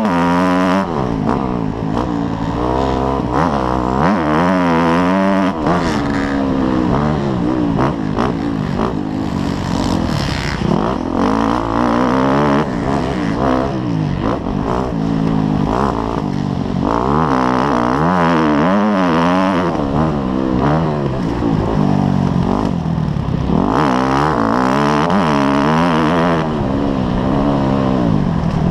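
Dirt bike engine revving up and down over and over as the rider accelerates and shifts around a motocross track, heard from a helmet-mounted camera.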